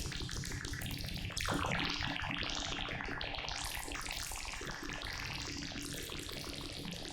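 Short synth clicks run through FL Studio's Multiband Delay in linear-phase mode, making a dense, bubbly, watery texture. It is a rapid stream of overlapping clicks with fast pitch sweeps.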